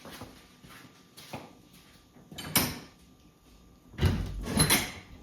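A door being handled: a few soft knocks, a sharp knock about two and a half seconds in, then a louder rattling rumble for about a second near the end.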